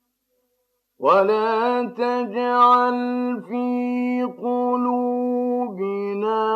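A man reciting the Quran in slow, melodic chant, holding long wavering notes broken by short syllable breaks; it starts about a second in after a brief silence.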